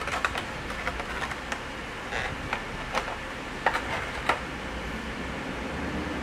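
Hands handling the clear plastic case of an LG G5 battery charging pack and taking the pack out: a run of sharp plastic clicks and crackles in the first four or so seconds, then only steady low background noise.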